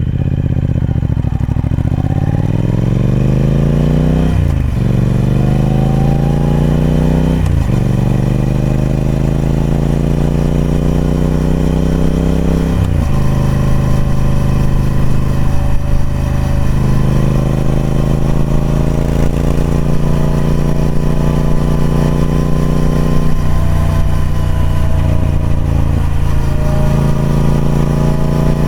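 Triumph Speed Twin 1200's parallel-twin engine through the stock exhaust, accelerating hard through the gears. Its pitch rises and then drops at three upshifts, about four, seven and thirteen seconds in. After that it settles into a steady cruise.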